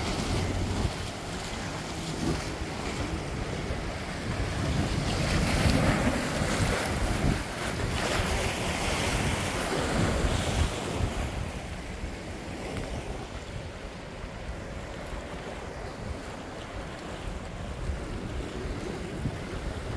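Sea waves washing and breaking against shoreline rocks, with wind buffeting the microphone. The surf surges louder around the middle and is softer in the second half.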